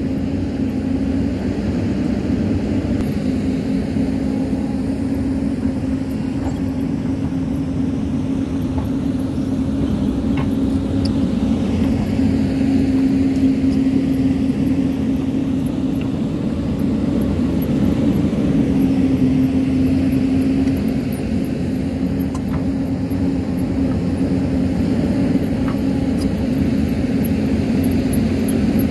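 Hyundai crawler excavator's diesel engine running steadily under load as the machine digs, growing a little louder twice, about halfway through and again a few seconds later.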